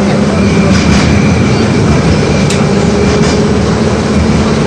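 LVS-86K tram running along the track, a loud steady rumble with a low hum and a few sharp clicks as the wheels pass over the rails.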